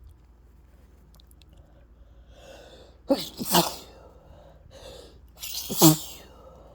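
A person sneezing twice, each sneeze preceded by an audible in-breath. The first comes about three seconds in; the second, near the end, is the louder.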